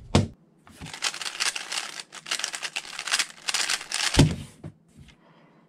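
Rapid clicking and clacking of a Gan 12 Maglev magnetic 3x3 speedcube being turned fast by hand, with a low thump about four seconds in.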